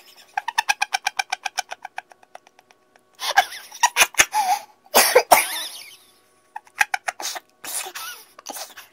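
A young man's voice: a rapid run of high-pitched laughing for about two seconds, then loud coughing and strained cries, his reaction to the harsh aftertaste of ginger jelly.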